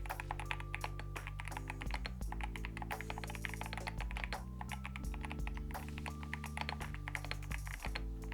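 Fast typing on an AKKO 5075B Plus mechanical keyboard fitted with linear Akko Dracula switches: a dense run of quick key clacks over background music with held chords.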